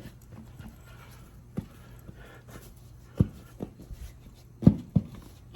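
A few separate dull knocks and thumps, the loudest pair near the end, as a motorcycle tire and wheel are worked around to break the tire bead, over a faint steady low hum.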